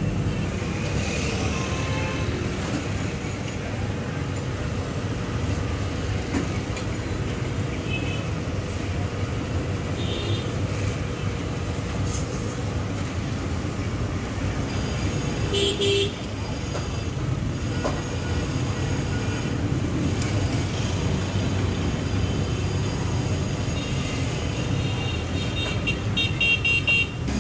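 Steady road traffic noise with engines running, and short vehicle horn toots about halfway through and again near the end.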